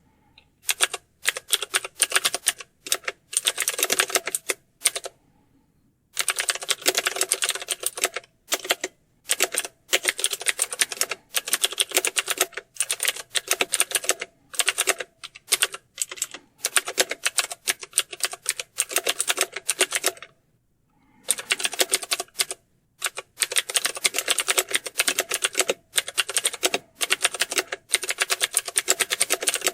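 Fast typing on a computer keyboard: dense runs of keystrokes broken by short pauses, with a longer pause about five seconds in and another about twenty seconds in.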